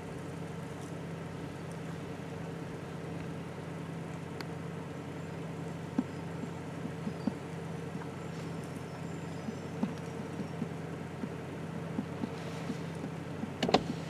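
A steady engine-like hum throughout, with soft snaps and crunches from about six seconds in as a bull elk tears and chews oak leaves and twigs; a sharper snap comes near the end.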